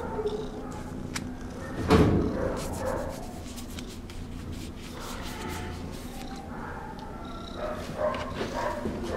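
Domestic shorthair cat purring steadily while being petted, with a sudden loud thump about two seconds in.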